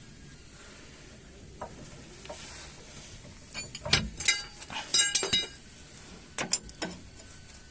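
Metal parts and tools clinking and knocking together, with sharp ringing clinks in a cluster about halfway through and a few more near the end.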